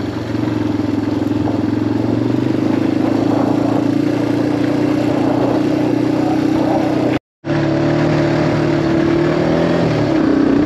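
Motorbike engine running steadily at low, even revs, recorded from on the bike. The sound cuts out for a moment about seven seconds in.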